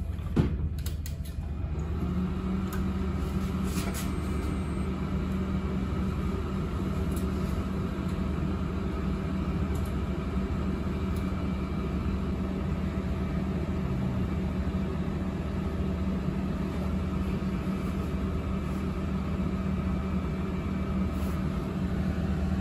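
A Keithley 4200 semiconductor parameter analyzer being switched on: a click from the power button, then a second or two later its cooling fans start and run as a steady machine hum with a low tone while the instrument boots.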